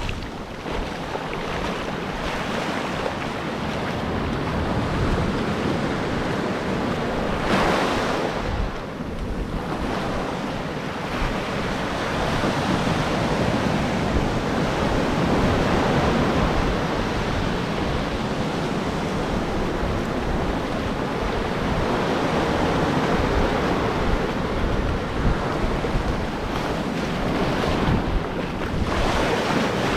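Ocean surf washing in steadily, swelling and easing, with wind gusting across the microphone.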